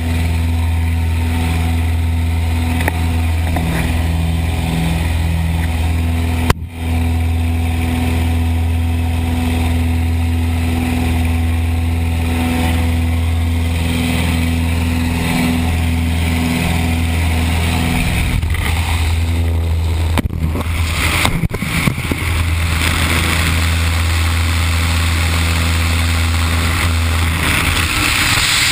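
Propeller-driven jump plane's engines droning steadily through the open side door, with wind rushing past. Near the end the engine drone falls away into the rush of freefall wind as the tandem pair leaves the aircraft.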